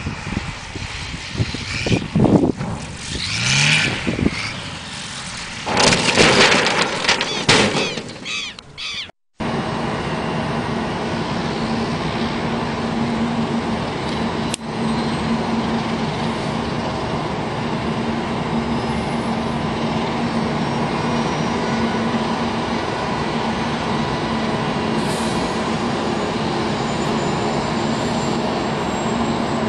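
A light single-engine plane passing low, its engine noise loud and uneven with a couple of rising surges. After an abrupt cut about nine seconds in, a steady rushing noise with a constant low hum.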